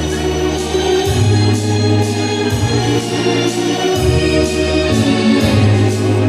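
Organ playing dance music, with sustained bass notes that change about once a second under held chords and a light, regular beat.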